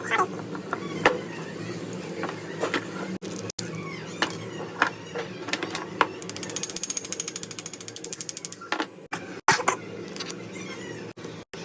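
Scattered clicks and taps of metal parts and tools being handled while an angle grinder is taken apart for a bearing replacement. Midway through comes a run of rapid, even ticking, about ten a second, lasting a couple of seconds. A steady low hum runs underneath.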